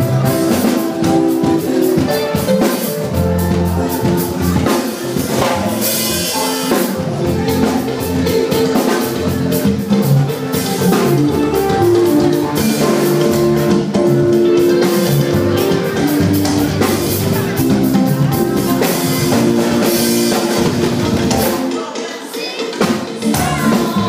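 Children's choir singing with live drum kit and instrumental accompaniment, drum beats running under the held notes. The drums and bass drop out briefly near the end.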